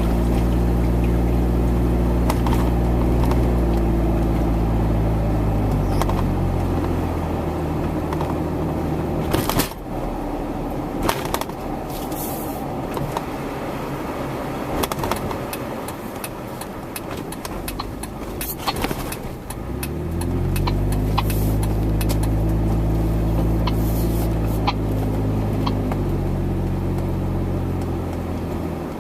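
A low engine running, its pitch falling as it dies away about eight seconds in and rising again as it picks back up around twenty seconds in, with scattered sharp clicks throughout.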